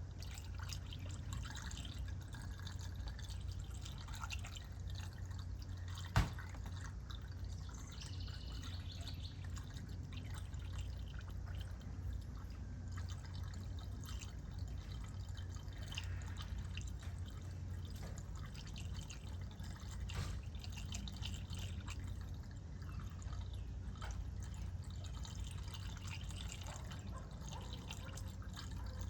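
Liquid dripping, over a low steady hum, with a sharp click about six seconds in.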